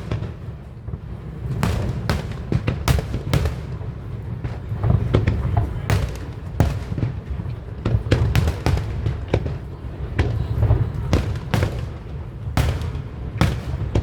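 Aerial fireworks bursting, many sharp bangs in quick succession with deep booms rumbling underneath.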